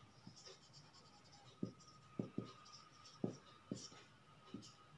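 Marker pen writing on a whiteboard: faint, scattered light taps and scratchy squeaks as letters are stroked out.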